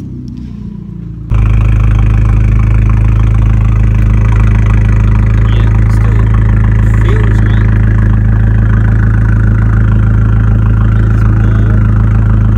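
Abarth 595 Competizione's 1.4-litre turbocharged four-cylinder idling steadily, heard close at the quad tips of its Record Monza exhaust, with a loud low drone; the exhaust valve is resting open, its tensioning spring unhooked. The idle sound begins suddenly about a second in.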